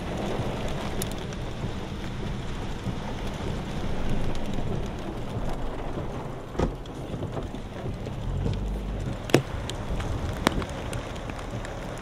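Steady rushing of wind and rain from a severe thunderstorm, with three sharp cracks in the second half.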